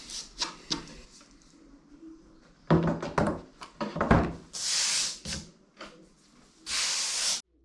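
Knocks and clatter of something being handled, then two short hissing bursts of under a second each.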